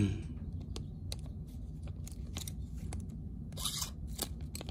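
A knife blade cutting into a thin plastic bag, with small clicks and crinkles and one short scratchy slicing hiss about three and a half seconds in.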